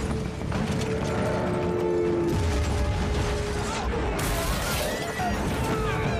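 Passenger bus crashing and tumbling down a slope: continuous rattling, clattering and creaking of the body over a heavy low rumble.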